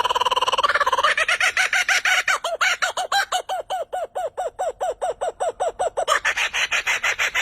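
Bird calling: a fast trill for about a second, then a long run of short, rapidly repeated notes, about six a second, each rising and falling in pitch.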